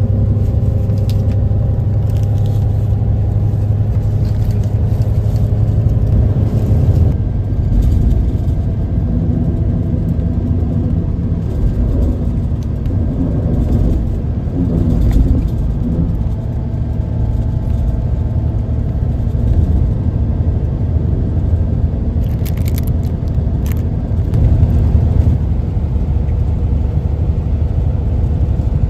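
Highway bus engine and road noise heard from inside the passenger cabin: a steady low rumble, with the engine note changing about seven seconds in. A few brief crackles come near the end.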